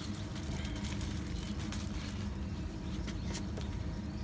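Steady low engine drone, like a motor vehicle running in the distance, with a few faint clicks over it.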